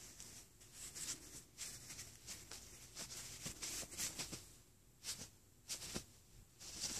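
Cloth rustling and scuffing in irregular bursts as a cat paws at and tugs a bandana across a bedspread, with a few sharper scuffs near the end.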